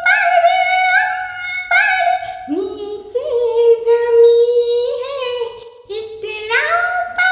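A woman singing solo with no instruments, in long held notes with a wavering vibrato. The melody dips lower midway and climbs back up near the end, with a brief breath break.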